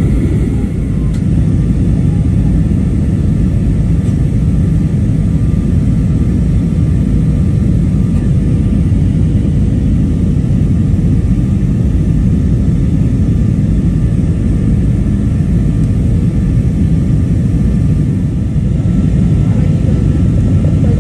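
Steady cabin roar of a jet airliner in flight, engine noise and rushing air heard from a window seat, during the descent on approach to landing.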